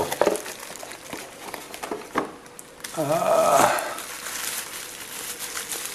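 Bubble wrap crinkling and rustling as a wrapped object is lifted from a cardboard box and turned over in the hands. There is a brief wordless vocal sound about three seconds in.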